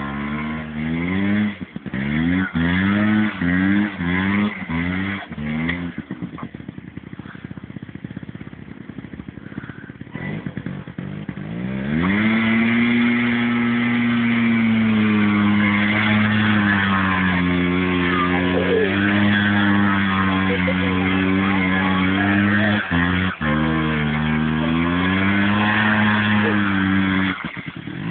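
Small 50cc ATV engine revving in short repeated blips, dropping quieter for several seconds, then held at high revs in a long steady run whose pitch wanders slightly.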